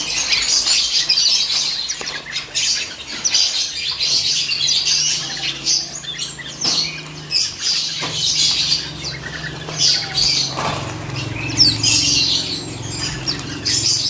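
A crowded cage of white-eyes (pleci) chirping all at once in many short, high calls, with wings fluttering as the birds flit between perches. A low steady hum sits underneath.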